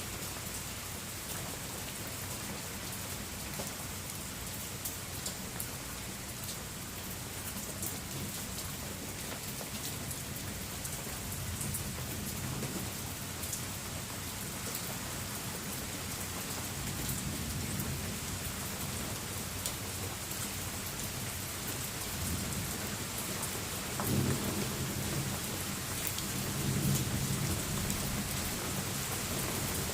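Steady rain falling, with rolls of thunder rumbling several times, the loudest about two-thirds of the way through and near the end.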